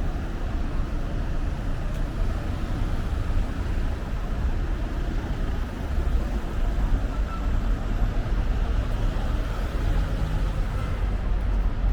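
Steady city street noise: road traffic passing, a constant low rumble with no single distinct event.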